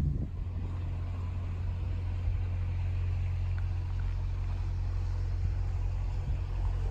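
Narrowboat's diesel engine running steadily, an even low drone.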